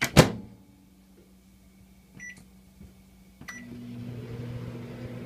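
Microwave oven door shut with a loud clunk, two short keypad beeps, then the oven starts running with a steady hum and fan noise.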